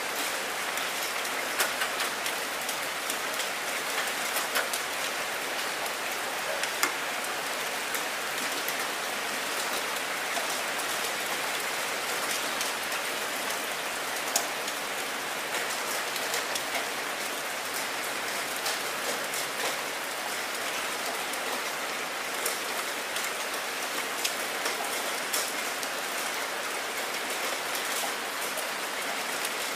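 Heavy rain falling steadily on a wet surface: a dense, even hiss with frequent sharp splashes of single drops standing out.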